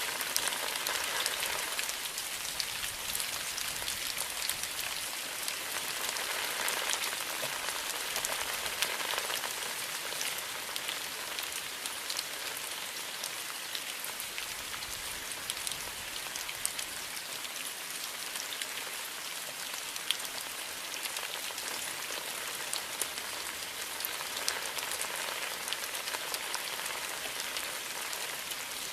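Steady rain falling, an even hiss with many close individual drops ticking throughout.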